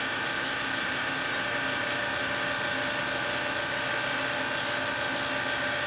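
Steady high electrical buzz of a Tesla coil driving a krypton plasma discharge through an evacuated glass bottle, with a constant whine-like tone.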